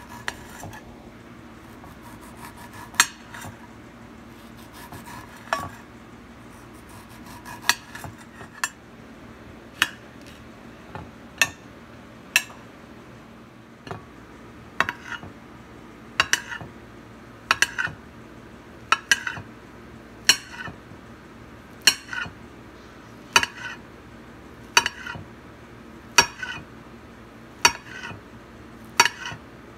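Kitchen knife slicing through banana and strawberry, its blade clicking sharply on a hard serving tray with each cut, about one click every second and a half and more regular in the second half.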